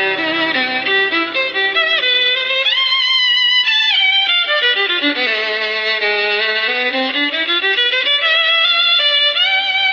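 Violin playing a slow melody with sliding notes: the instrumental introduction of a folk ballad, before the singing begins.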